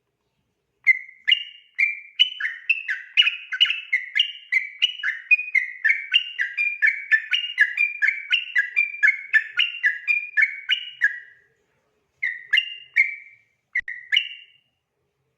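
Yellow-vented bulbul (trucukan) singing a long, unbroken run of quick, clear warbled notes, about three a second, for some ten seconds. It then adds two short phrases near the end.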